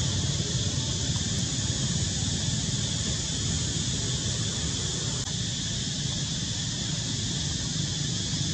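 Steady hiss with a low rumble under it, even throughout, with no distinct calls, splashes or other events standing out.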